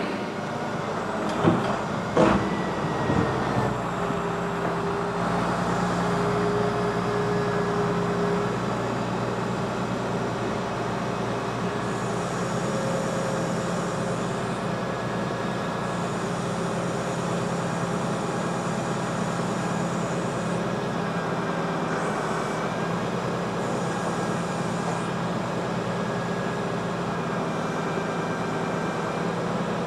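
Link-Belt 2800 excavator's engine running steadily while the machine is worked, with two short knocks about two seconds in.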